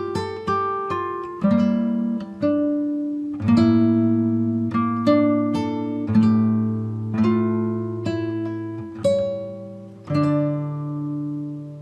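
Background music: an acoustic guitar plucking notes and chords, each one ringing out and fading, about one a second; the last chord, a little before the end, is left to ring.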